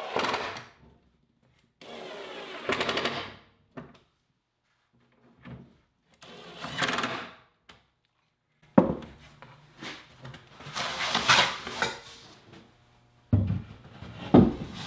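Cordless Milwaukee driver running in several short bursts, driving screws into a wooden cleat, with quiet gaps between bursts.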